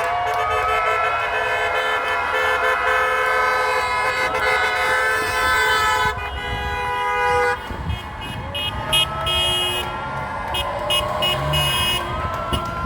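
Car horns honking, several at once in long overlapping blasts that break off about seven and a half seconds in, followed by quick repeated short beeps.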